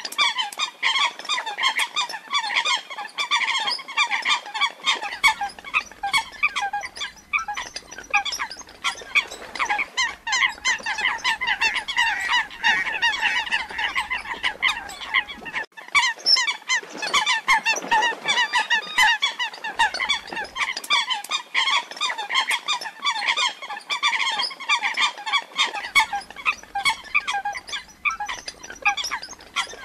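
Coot calls repeated in a rapid, dense stream of short notes, the distress call of a female coot lost from its flock. The calls break off for a moment about halfway through.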